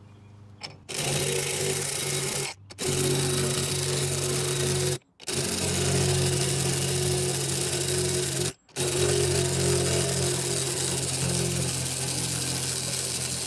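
Cordless drill with a socket running on the top nut of a spring-compressed coilover strut, spinning the nut off. It runs steadily in four long pulls, starting about a second in, with short stops at about 2.5, 5 and 8.5 seconds.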